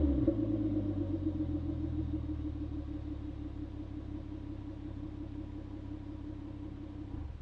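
Hyundai Genesis Coupe's 3.8 V6 engine idling through its exhaust: the revs drop from a start-up flare and settle into a steady idle. The sound cuts off suddenly near the end.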